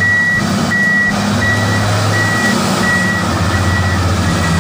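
Large rigid mining haul truck's diesel engine running with a low rumble while its backup alarm beeps steadily, about seven single-tone beeps roughly 0.7 s apart.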